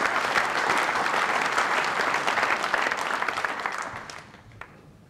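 Audience applauding, the clapping dying away about four seconds in.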